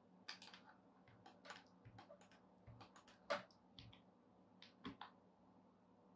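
Faint, irregular clicking of a computer keyboard and mouse: scattered key taps and mouse clicks, with two louder clicks about a third of the way in and near the end.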